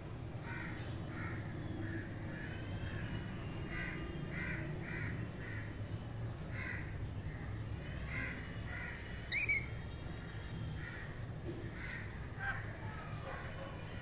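Pet parrots, lorikeets among them, calling in a run of short repeated calls about twice a second, with one loud sweeping shriek a little past halfway.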